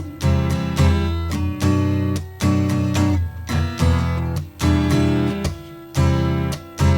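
Acoustic guitar strummed in an instrumental break of a folk song, a chord struck about once a second and left ringing between strokes.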